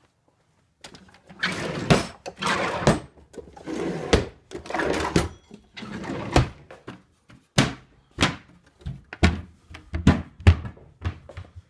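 Rustling and scraping as things are handled and moved about, then a run of sharp knocks and thunks, about seven in the second half.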